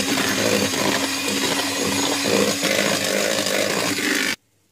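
Electric hand mixer running steadily, its beaters mixing flour into cake batter; it is switched off abruptly about four seconds in.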